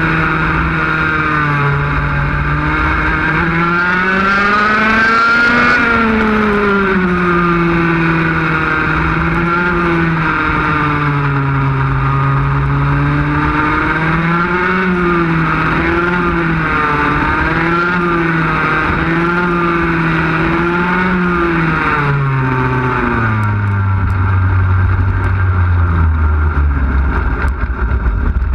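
Onboard sound of a 100cc two-stroke Formula A racing kart engine at part throttle, its pitch rising and falling in long swells through the corners. About three-quarters of the way in the revs drop in steps to a low, rough idle as the kart slows to a stop.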